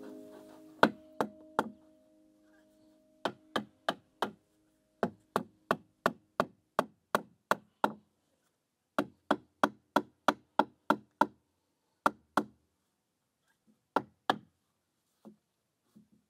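Hammer striking nails into the wooden formwork boards: sharp knocks in quick runs of two to seven, about three a second, with short pauses between runs and a few lighter taps near the end.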